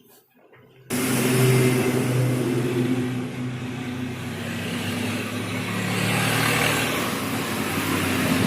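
Loud, steady motor or engine noise with a low hum, starting abruptly about a second in.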